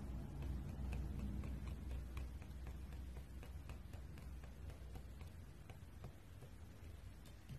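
Small metal wire whisk stirring paint in a ceramic ramekin, its wires ticking lightly and irregularly against the bowl, over a low rumble that fades after the first few seconds.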